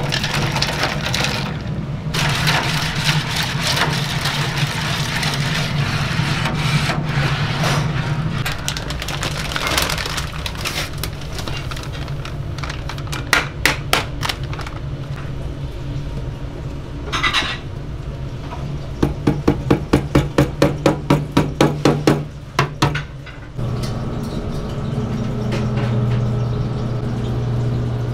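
Kitchen prep sounds over a steady machine hum. At the start ice cubes are tipped from a steel bowl into liquid. Midway a paper flour sack is handled and knocked, with a fast run of sharp knocks. About 23 seconds in, an electric dough mixer starts and runs with a steady hum as its blade turns the flour.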